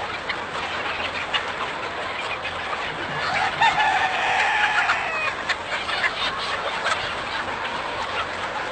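A large flock of chickens clucking and calling all at once in a dense, continuous chatter. One louder, longer call stands out about three seconds in and lasts nearly two seconds.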